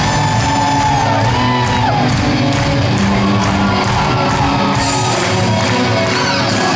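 A live rock band plays loudly and steadily, and shouts come from the crowd over the music.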